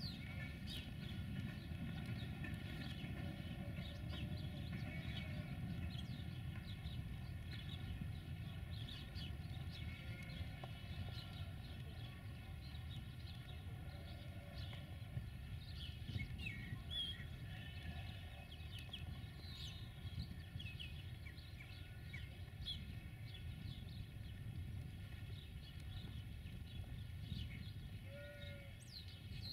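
Distant freight train wagons rolling past, a steady low rumble on the rails, with many short bird chirps scattered over it.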